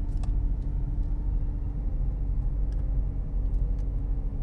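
Steady low rumble of a Volkswagen Virtus's 1.0 TSI three-cylinder turbo petrol engine and tyres, heard inside the cabin while rolling at low speed, with a faint steady drone and no revving.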